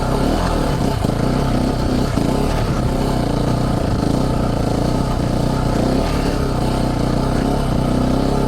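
Single-cylinder dual-sport motorcycle engine running steadily while riding, at an even engine speed without big revs.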